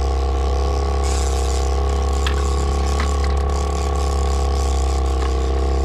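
A boat motor running steadily at trolling speed, an even hum with a strong low drone. A few short clicks sound about two and three seconds in.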